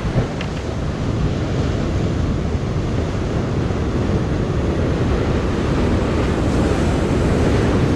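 Ocean surf breaking and churning against the rocks below, a steady heavy rush that grows a little louder after the first second. A single light knock sounds right at the start.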